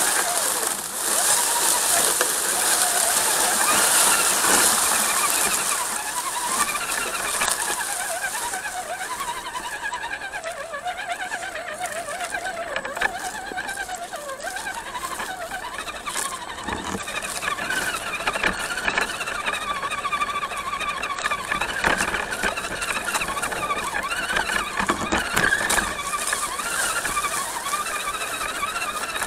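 Electric motor and geared drivetrain of a Redcat Gen7 RC crawler whining, the pitch rising and falling with the throttle as the truck crawls downhill, with a loud hiss over the first few seconds.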